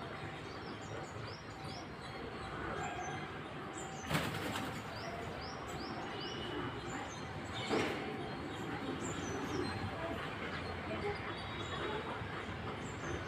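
Squirrel chirping: a steady run of short, high, downward-sliding chirps, several a second. Two brief noisy bursts break in, about four and eight seconds in.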